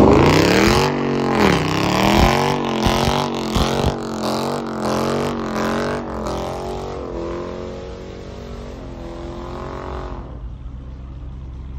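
Car engine revving hard during a burnout, its pitch swinging up and down again and again over the hiss of spinning tyres, then dying away near the end.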